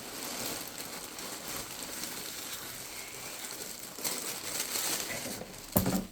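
Paper wrapping rustling and crinkling as it is handled and pulled out of a box by hand, with one short louder thump near the end.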